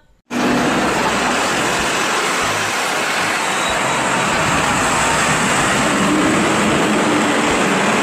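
City street traffic noise with a Routemaster double-decker bus running past close by. The sound cuts in suddenly just after the start and holds at a steady level.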